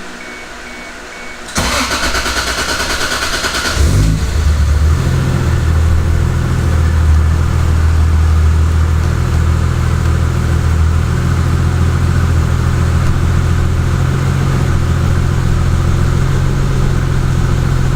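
Toyota Supra engine being started: the starter cranks for about two seconds, the engine catches, and it settles into a steady idle.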